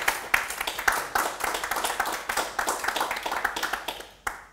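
Small audience applauding, dense irregular hand claps that die away near the end, with one last single clap.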